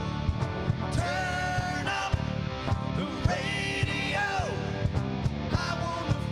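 Live rock band playing an instrumental passage: electric guitar lead with held and bent notes over a steady drum beat and bass.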